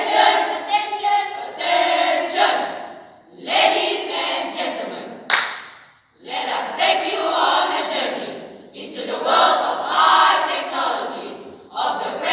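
A school choral speaking group of boys and girls singing together in unison, in phrases of two to three seconds with short breaks between them, and a single sharp hit about five seconds in.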